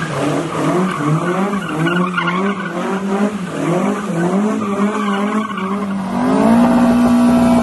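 Mk2 Ford Escort RS2000 drifting: the engine revs rise and fall over and over as the rear tyres squeal and spin. Near the end the revs climb and are held at a steady higher pitch.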